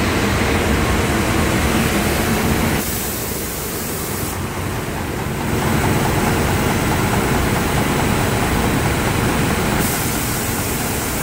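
Viet wide-belt planer-sander running steadily with its conveyor feeding a live-edge wood slab through, a loud even machine noise. It goes quieter and duller for a couple of seconds about three seconds in, then comes back up.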